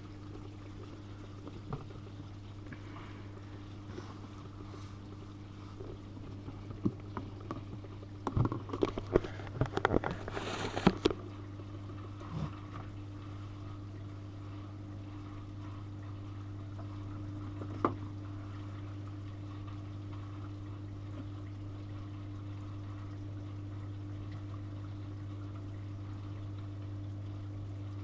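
Miele front-loading washing machine draining at the end of the main wash: a steady pump hum with water pouring and gurgling away, and a short burst of sloshing and clatter about a third of the way in.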